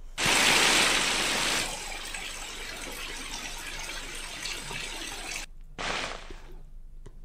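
Floodwater rushing and gushing along a street, a steady noise of flowing water that is loudest for the first second and a half, then settles, breaking off abruptly for a moment about five and a half seconds in.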